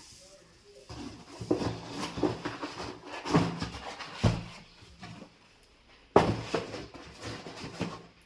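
Cardboard fireworks packaging being handled and moved: irregular rustling and knocks, with a sharp knock about six seconds in.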